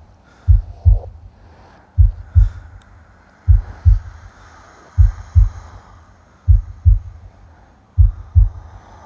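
Slow heartbeat: a low double thump repeating about every one and a half seconds, six beats in all, over a faint hiss.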